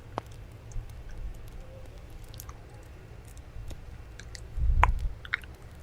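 ASMR mouth sounds close to the microphone: soft wet clicks and smacks scattered through, with a louder low bump a little before the end.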